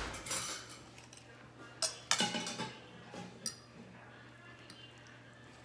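Knife and fork clinking and scraping against a plate while a slice of French toast is cut, a few sharp clinks in the first half, then quiet.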